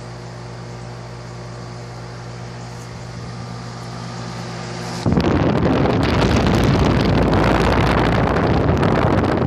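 Air-conditioner outdoor condenser unit running with a steady hum. About five seconds in, a loud rushing noise suddenly takes over: the fan's discharge air blowing across the microphone.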